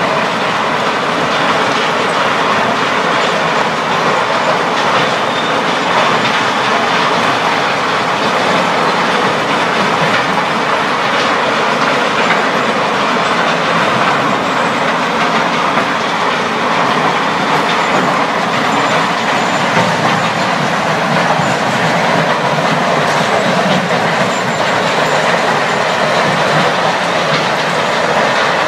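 Limestone crushing line running: a steady, loud mechanical din of the plant's machinery and belt conveyors, with a dense rattling clatter of stone running through it.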